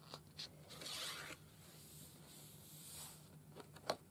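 Sheets of a pad of patterned craft paper being handled and turned over: soft rustling and sliding of paper, with a few light clicks near the end.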